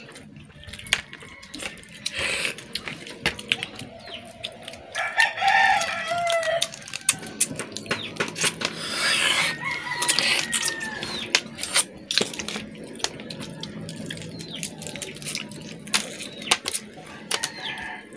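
A rooster crows about five seconds in and again near nine seconds, over many small sharp clicks and cracks of crab shells being broken open by hand.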